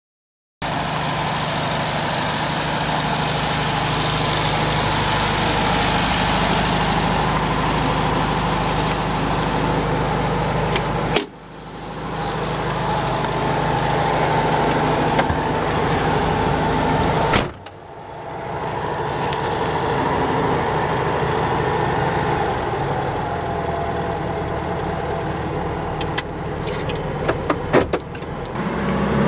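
1956 Volkswagen Beetle's 40 hp 1200cc air-cooled flat-four engine running as the car is driven, heard from inside the cabin. The sound drops away suddenly twice and builds back, and a few sharp clicks come near the end.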